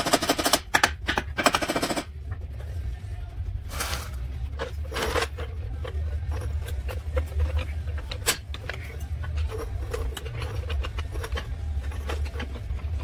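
Two bursts of rapid metal-on-metal hammering at the front suspension's steering knuckle in the first two seconds. After that come scattered knocks and clicks over a steady low hum.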